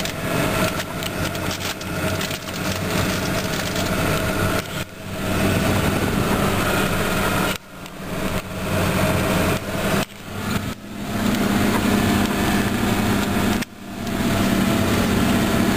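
Snowmobile-trail groomer's diesel engine running steadily under load as the machine drives along the trail pulling its drag, with a steady low hum. The sound dips briefly about four times.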